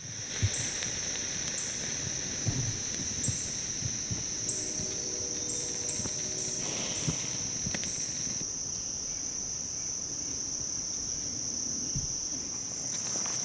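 Insects, crickets by the sound of it, keep up a steady high-pitched drone, with shorter chirps above it repeating every second or so. A few faint pops and crackles come from the wood fire burning in a small firebox stove.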